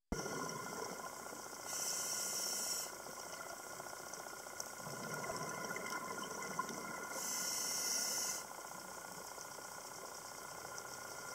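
Scuba diver breathing through a regulator, heard underwater through a camera housing: a steady low hiss with two louder hissing breaths, each about a second long, about five seconds apart.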